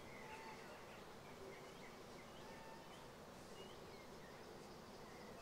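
Near silence: faint outdoor hiss with a few short, faint bird chirps scattered through it.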